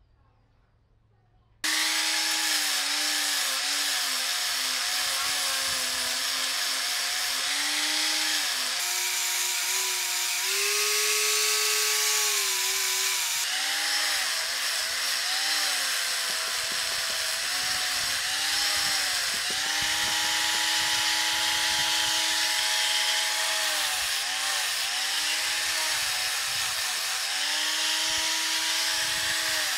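Electric angle grinder with a sanding pad sanding the end grain of a wooden hammer head. The motor's whine starts suddenly about two seconds in, then repeatedly dips in pitch and recovers as the pad is pressed into the wood and eased off.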